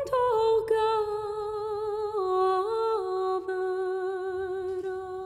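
A woman humming a slow melody in a high register, holding each note for about a second and stepping between them.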